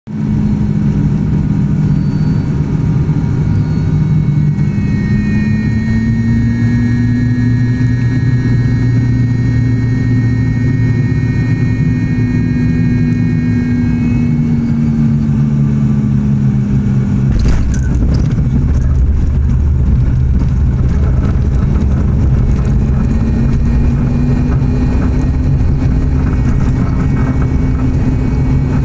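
Steady propeller drone of an ATR 72-600 turboprop heard inside the cabin, its pitch slowly rising and falling. About seventeen seconds in comes a sudden jolt as the main wheels hit the runway in a hard landing, followed by a rough low rumble of the rollout.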